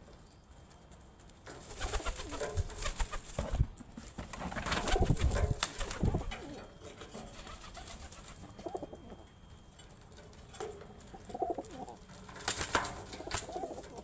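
Domestic pigeons squabbling on a feeding hand: loud wing flapping and scuffling for a few seconds, starting a couple of seconds in, then cooing with more short bursts of flapping near the end.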